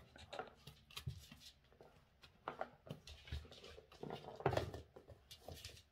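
Small dog's claws and paws tapping and scuffing on a wooden floor, with scattered light taps as it noses at the doorway threshold.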